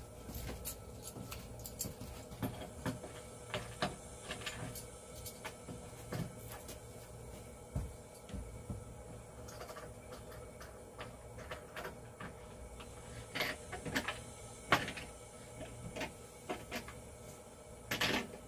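Irregular clicks, taps and knocks of equipment being handled and fitted together while a ring light and microphone are set up, with a few louder knocks in the second half.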